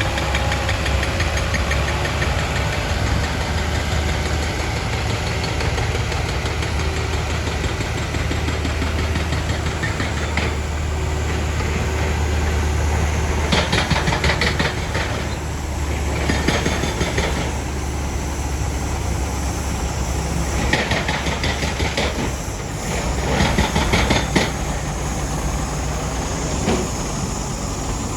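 Diesel engine of heavy earthmoving equipment running steadily, with several short bursts of clattering, scraping noise from about halfway on, typical of aggregate being scooped or dumped.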